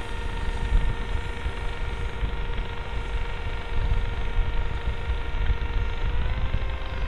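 Whine of the S800 Sky Shadow FPV flying wing's electric motor and propeller in flight, a steady tone that rises slightly about six seconds in as the throttle changes. Wind buffets the microphone with a low, gusty rumble.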